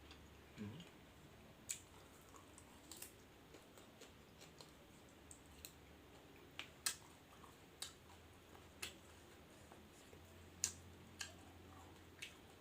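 Faint, sparse sharp clicks and small crackles, about one a second, over a quiet room: the small sounds of fresh raw vegetables and squid being handled and eaten.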